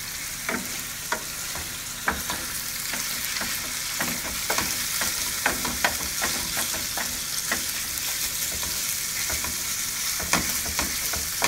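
Ground meat sizzling as it browns in a frying pan, with irregular knocks and scrapes of a wooden spoon against the pan as the meat is stirred and broken up.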